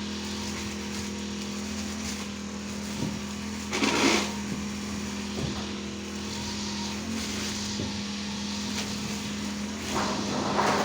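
Small engine running steadily at a constant speed, with a short rushing noise about four seconds in and another starting near the end.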